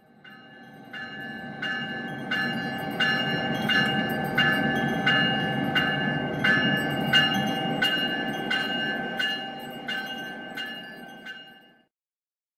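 A railroad bell ringing steadily, about three strokes every two seconds, over the low rumble of a train. It fades in at the start and stops shortly before the end.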